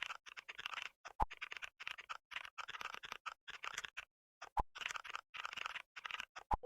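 Keyboard typing sound effect: rapid runs of key clicks with short pauses between them, and a few sharper single clicks among them.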